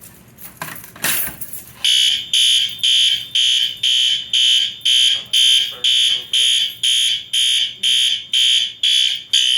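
A manual fire alarm pull station is pulled with a short clack about a second in. A second later a System Sensor L-series P4RLA horn strobe starts sounding in march-time code: a loud, shrill horn pulsing about twice a second, which signals that the Notifier AFP-200 panel has gone into alarm.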